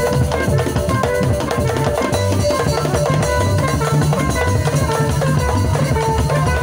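Live band playing instrumental dance music: a steady drum-kit beat under a strong bass line and melodic instrument notes.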